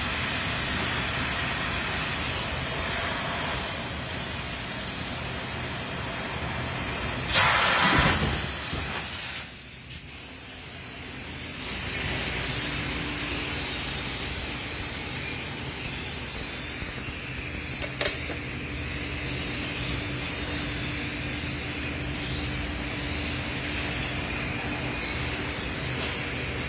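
Steady hissing noise of factory machinery in a metalworking shop. A louder hiss lasts about two seconds about a third of the way in and is followed by a brief quieter spell; after that the steady noise returns with a faint hum and one sharp click.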